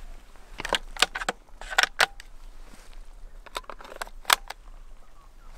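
A series of sharp metallic clicks and clinks in loose clusters, some in quick pairs, the loudest a little past four seconds in: handling sounds of metal gear.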